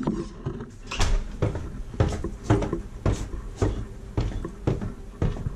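A regular run of short thuds and knocks, about two a second.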